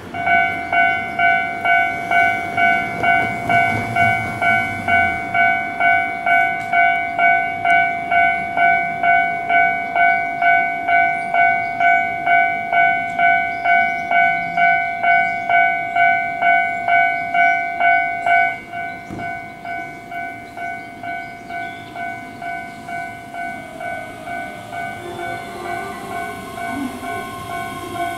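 Japanese railway level-crossing alarm ringing, an electronic ding repeating about twice a second, loud at first and then dropping to a quieter ring a little past halfway. Near the end a Keihan 10000 series electric train is heard under it, braking to a stop at the platform.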